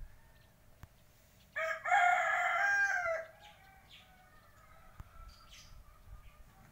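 A rooster crowing once, one loud call of about a second and a half that starts about one and a half seconds in and trails off.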